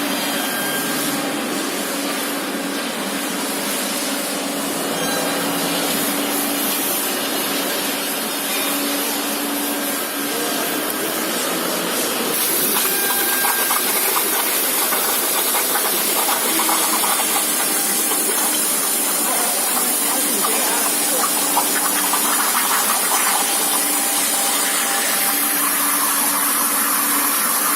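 Plasma cutting torch on a CNC table hissing steadily as it cuts through 12 mm steel plate. About twelve seconds in, the hiss turns brighter and a little louder.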